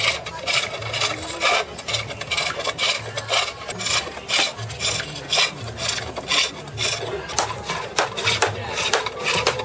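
Turning tool cutting a wooden bowl blank on a foot-powered lathe: rasping shaving cuts in a steady rhythm, one after another as the treadle drives the blank round.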